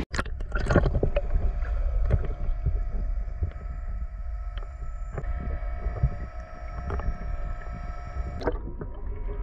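Muffled sound recorded by a camera under the sea: a steady low rumble with faint steady hum tones and scattered clicks and knocks. The sound changes abruptly near the end.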